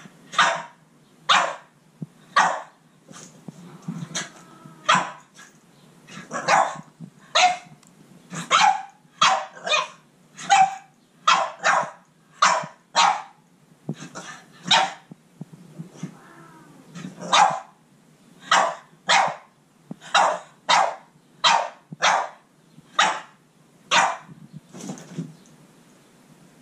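Boston Terrier barking at a cat: sharp, separate barks about once a second, some in quick pairs, with a brief lull just past the middle.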